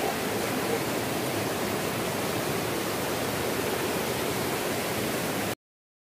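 Waterfall's water rushing steadily, cutting off suddenly about five and a half seconds in.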